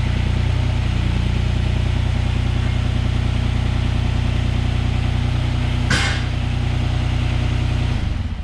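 Kobelco SK17SR mini excavator's small diesel engine idling steadily, then shut off near the end, with a brief hiss about six seconds in.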